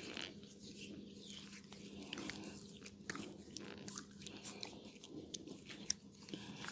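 Close-up massage sounds: hands scratching and rubbing on skin and hair, with scattered sharp clicks and crackles over a steady low hum.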